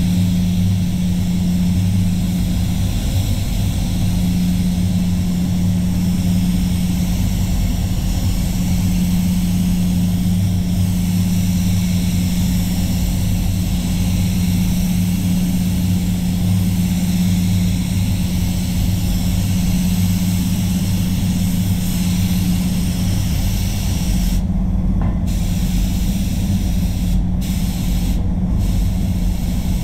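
Avalon Beyond Nova gravity-feed spray gun hissing steadily as it sprays paint, over a steady low hum from the spray booth. Near the end the gun's hiss cuts out briefly three times as the trigger is let off between passes.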